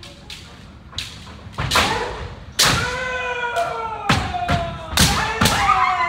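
Kendo sparring: about eight sharp knocks of bamboo shinai strikes and stamping feet on a wooden floor. From about two and a half seconds in, several fencers' long kiai shouts overlap, each falling in pitch.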